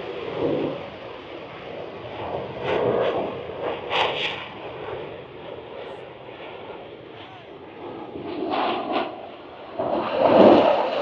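Airplane engine noise that rises and falls unevenly, then grows clearly louder about ten seconds in.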